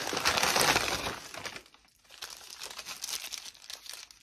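Paper fast-food bag and paper wrapping rustling and crinkling as hands rummage inside the bag: dense and loud for the first second and a half, then quieter scattered crackles.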